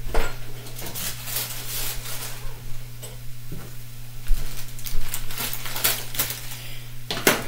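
Kitchen clatter as ingredients and utensils are gathered from a counter: scattered sharp knocks, clinks and rattles, the loudest near the end, over a steady low hum.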